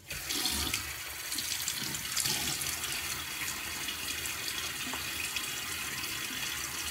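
Bathroom sink tap turned on and running steadily into the basin, as water is used to wet the face before shaving.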